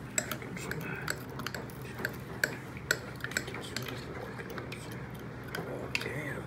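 A metal spoon stirring a drink in a drinking glass, clinking against the glass in light, uneven taps a few times a second.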